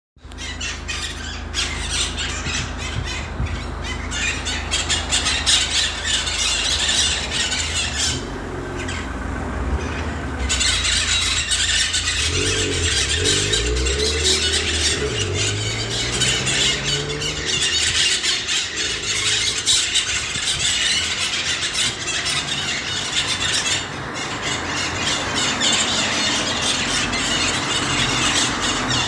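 A large flock of parrots squeaking and squawking continuously, a dense overlapping chatter of shrill calls. A low rumble rises and falls underneath about halfway through.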